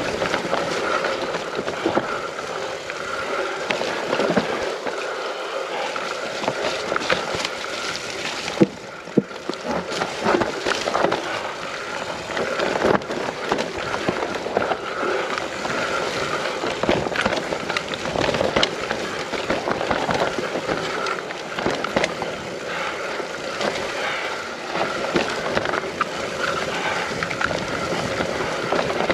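Mountain bike riding down a rough trail: steady tyre rolling noise with frequent rattles and knocks from the bike over bumps.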